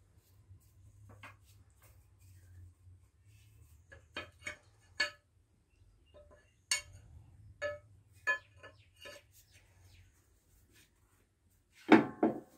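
Scattered sharp metallic clinks and taps, roughly one every second or so, from metal parts and tools being handled on an old stationary diesel engine that is not yet running, over a faint low hum. A louder burst of sound comes in near the end.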